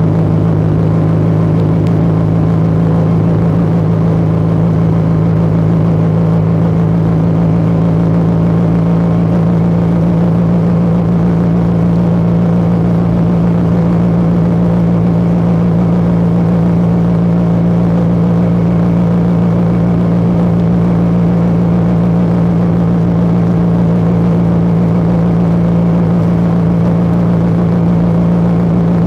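Motomel Rider 250 motorcycle engine and exhaust running at a steady, unchanging engine speed.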